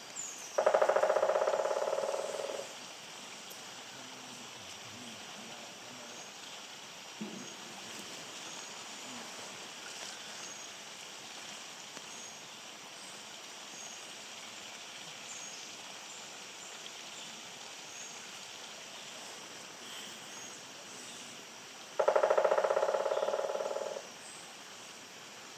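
Woodpecker drumming on wood: two rapid rolls of taps, each about two seconds long and fading toward its end, the second about twenty seconds after the first. Between the rolls a steady faint hiss with scattered faint high chirps.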